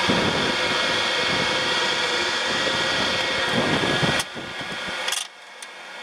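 Fantastic Vent Endless Breeze 12-volt box fan running on setting three, blowing straight at the microphone: a steady whir with wind buffeting the mic. About four seconds in the buffeting stops with a knock as the fan is turned away, and a second knock comes a second later.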